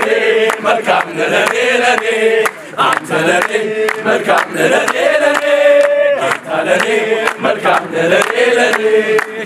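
A group of men singing a call-and-response chant together in held, sliding notes, with hand claps keeping time.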